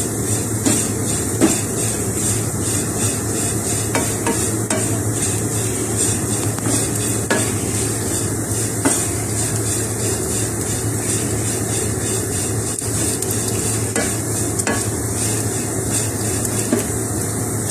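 A spatula stirring and scraping soya chunk filling in a nonstick frying pan, with small knocks against the pan over a steady sizzle of frying. This dry, crackly frying sound during stirring is the sign that the filling is well fried and dried out.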